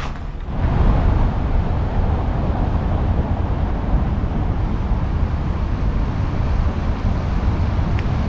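Steady city street traffic noise: a continuous low rumble with no distinct events standing out.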